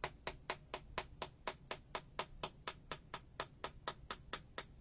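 Face of an SG IK Xtreme cricket bat being tapped in a quick, even rhythm, about four to five sharp knocks a second: a ping test of the blade, which sounds good.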